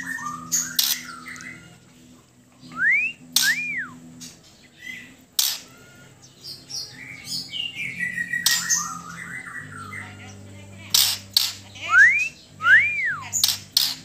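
Caged white-crowned shama singing in short phrases broken by sharp clicking notes. A clean two-note whistle, a quick rising note then an arched one, sounds twice, a few seconds in and again near the end.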